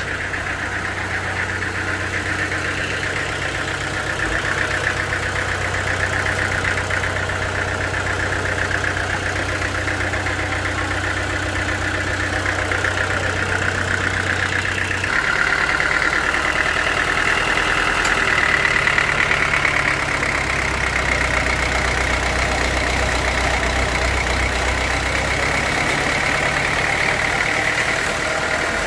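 Sawmill machinery running steadily, with a low engine-like hum and a high whine. About halfway through, the hum drops and the whine grows louder, a change in the machine's load.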